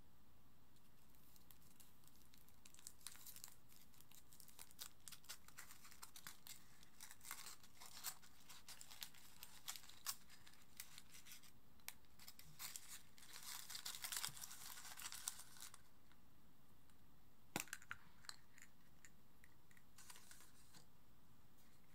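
Thin foil wrapper of a Furuta Choco Egg crinkling and tearing faintly as it is peeled off the chocolate egg by hand, in many small crackles. About three-quarters of the way through comes a single sharp click as the plastic toy capsule inside is snapped open.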